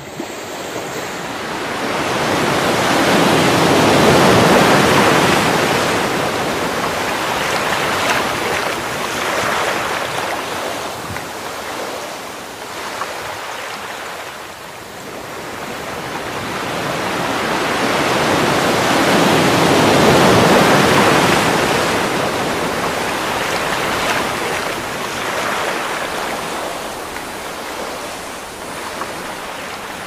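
Sea waves breaking and washing up a pebble shore, swelling and ebbing slowly. The biggest surges come a few seconds in and again about two-thirds of the way through.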